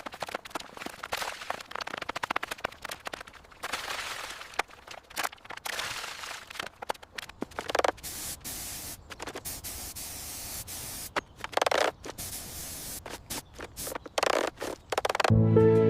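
Irregular scraping and scratching noises mixed with many quick clicks and knocks, with several louder hissing scrapes that come and go.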